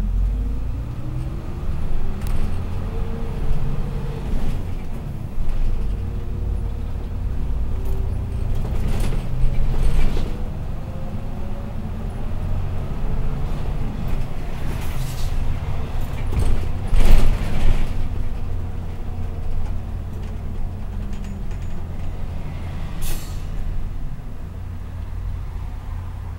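1995 Hino Rainbow city bus heard from inside the cabin while driving: a steady low diesel rumble, with the engine whine rising as the bus pulls away and again a few seconds later, and several sharp knocks from the bus.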